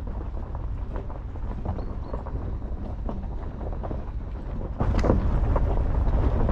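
A 4x4 driving slowly along a rough unsurfaced track: a steady low rumble with frequent short knocks and rattles. About five seconds in the sound turns suddenly louder and brighter.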